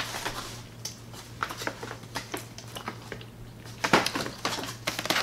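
Paper takeout bag rustling and crinkling as food containers are handled and packed into it, with scattered small clicks and a louder burst of rustling about four seconds in.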